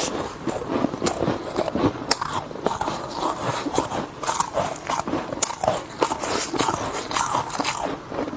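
Close-miked crunching and chewing of refrozen freezer frost, a dense run of crisp, irregular crackles.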